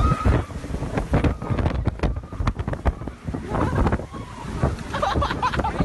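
Strong, gusty wind buffeting a phone's microphone in a storm, a loud uneven rumble with irregular thumps.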